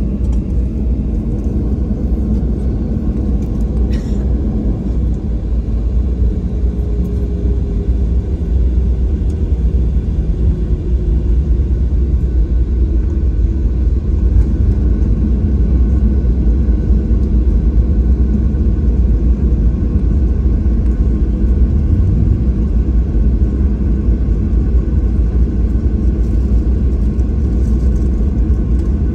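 Steady low rumble inside the cabin of a Boeing 737-700 taxiing, with its engines running at idle. A faint whine slides down in pitch a few seconds in, and there is a brief click about four seconds in.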